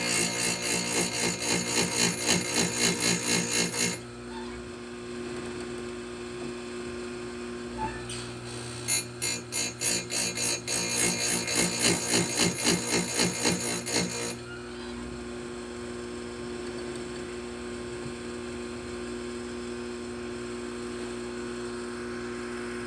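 Oregon electric chain grinder: the motor hums steadily, and twice the spinning stone grinds a chainsaw tooth in a run of quick touches, about three a second, that stop after a few seconds.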